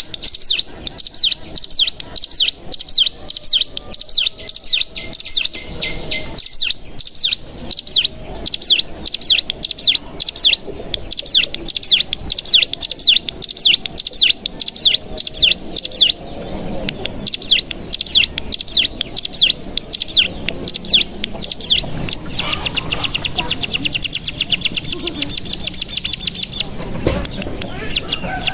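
Ciblek gunung (cigun) songbird singing: a fast series of sharp, high chirping notes, which from a little past the middle runs into a very rapid, even trill for several seconds, the "bren" that keepers listen for in a bird in full song.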